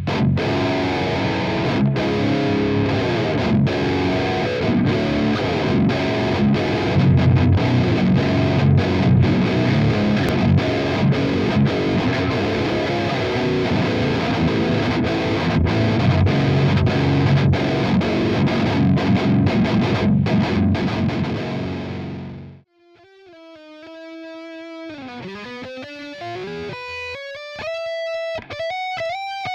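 High-gain distorted electric guitar, recorded direct and played through The Howler boost plugin and a Neural DSP amp-simulator plugin, playing a dense rhythm riff with short choked stops. About 22 seconds in it cuts off, and a quieter single-note lead line follows.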